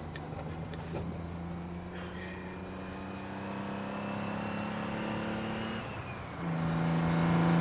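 Diesel engine of a loaded semi-truck pulling up a grade, its note slowly climbing. It drops briefly about six seconds in and comes back louder.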